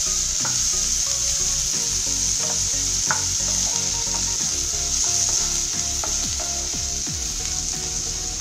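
Chopped onions sizzling in hot oil in a non-stick wok, being sautéed until lightly browned, as a wooden spatula stirs them. The frying hiss is steady, with a few short knocks of the spatula against the pan.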